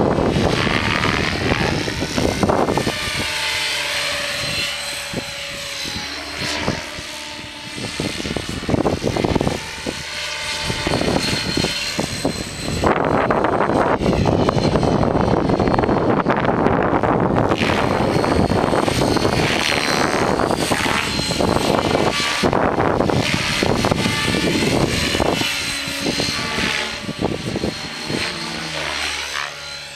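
Align T-Rex 600EFL Pro electric RC helicopter flying: its whine and blade noise swoop up and down in pitch as it passes and turns. Strong wind buffets the microphone, heaviest about halfway through.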